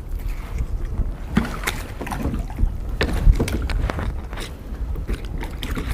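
Wind rumbling on the microphone, with scattered clicks and knocks of gear being handled in a plastic kayak and one louder thump about three seconds in.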